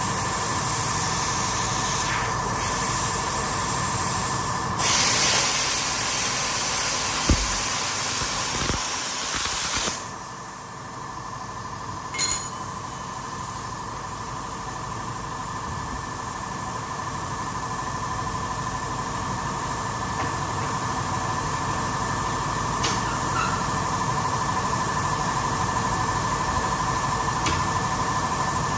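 Cutting torch hissing as it cuts a broken pulley bracket off a steel lawnmower deck. It is louder from about five seconds in and stops about ten seconds in. A steady machine hum with a whine carries on after it, with a few faint clicks.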